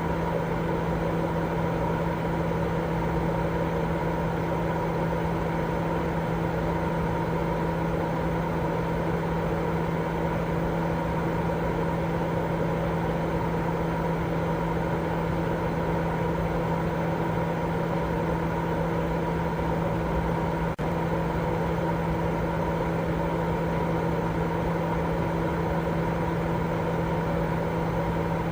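Baby-sleep white noise: a constant, even rush with a steady low hum running through it and no change in level. It drops out for an instant about 21 seconds in.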